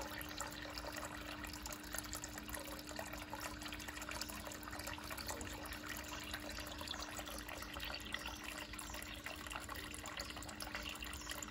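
Garden fountain's thin stream of water falling onto a rock and splashing steadily into its basin, with a faint steady hum underneath.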